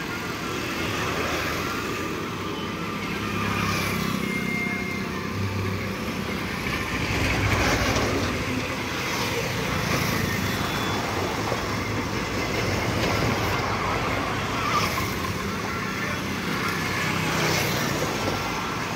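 Steady mixed vehicle noise: motorcycle and auto-rickshaw engines passing on the road, along with the rumble of a long passenger train rolling slowly on the elevated track. The traffic swells louder now and then.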